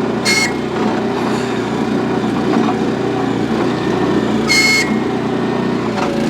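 Engine of a Harbor Freight Central Machinery towable backhoe running steadily under hydraulic load as the bucket works hard-packed dirt and a tree root ball. Two short high squeals cut through, one near the start and one about four and a half seconds in.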